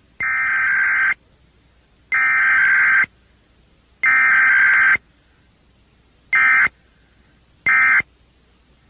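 Emergency Alert System SAME digital header: three harsh, buzzing data bursts of about a second each, a second apart. Then come two much shorter bursts of the same tone, the end-of-message code.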